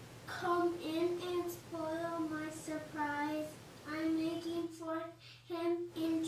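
A child singing a slow tune in long held notes, with short breaks between phrases.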